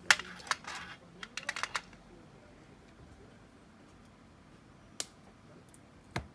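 Sharp clicks and light clatter of small plastic and metal parts being handled, a quick run of them in the first two seconds and two single clicks near the end, as the mechanism of a MiniDisc deck is worked on by hand.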